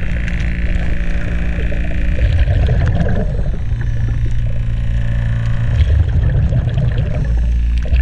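Sound heard underwater beneath a boat's hull: a loud, steady low hum and rumble, probably from the boat's machinery carrying through the water, with scattered small clicks over it.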